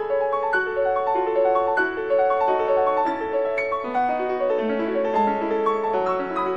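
Piano music: a flowing melody of many short notes over an accompaniment.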